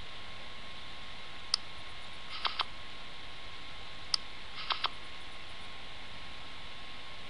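Online poker program sound effects: twice, a sharp click is followed a moment later by a quick pair of short electronic blips as the turn and river are played. Under them runs a steady hiss with a faint hum.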